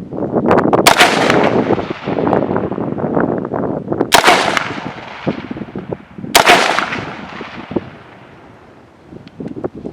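Three rifle shots from a Helanbak HP15 AR-15 chambered in 5.56, fired two to three seconds apart. Each shot rings out in a long echo that dies away.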